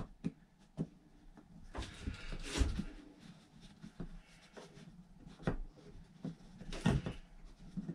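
Scattered light clicks, knocks and brief scraping as the shortened antenna control-shaft extrusion is worked up through the ceiling hole and fiddled at the base of the rooftop TV antenna, not yet seating.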